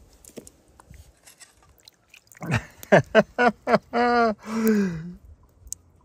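A man's wordless vocal exclamation: a quick run of short notes, each falling in pitch, then a drawn-out 'ooh' that falls at the end. Faint handling clicks come before it.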